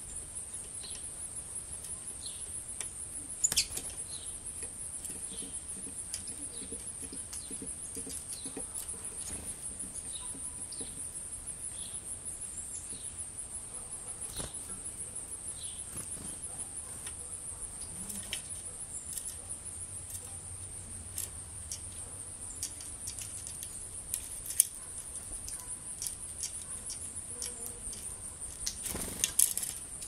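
Outdoor insects, likely crickets, trilling in a steady high-pitched drone, with scattered short chirps of small birds and a few sharp clicks at the feeder. Near the end a brief flutter of wings as a chickadee lands on the feeder.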